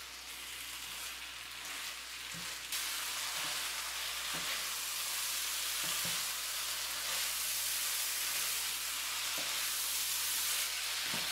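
Taco filling of ground beef, rice, beans and corn sizzling in a hot frying pan as a spatula stirs it, with a few brief scrapes of the spatula against the pan. The sizzle grows louder about three seconds in.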